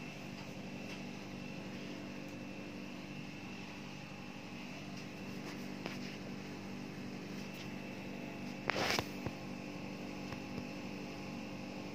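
Midea wall-mounted electric fan running, its motor giving a steady low hum with a faint high tone above it. A short burst of noise comes about nine seconds in.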